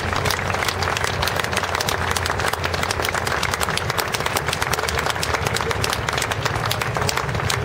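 Crowd of spectators applauding, many separate hand claps throughout over a steady wash of clapping.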